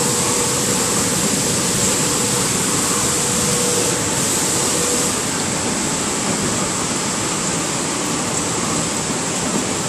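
Steady rushing noise of a recirculating fish-farm system: water running through the tanks along with the pumps. A faint steady hum under it stops about halfway through.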